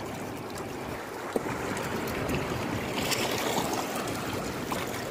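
Steady wash of moving water, with a single sharp click about one and a half seconds in.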